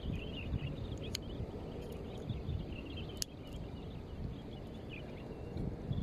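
Shoreline ambience: a steady low rumble of wind on the microphone, with faint high chirping and two sharp clicks, about one and three seconds in.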